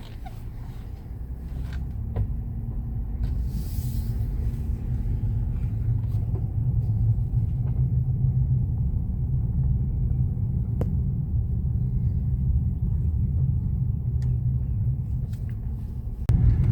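A 2013 Nissan Rogue driving, heard from inside the cabin: a steady low rumble of engine and road noise that builds over the first few seconds as the car gets up to speed, then holds even.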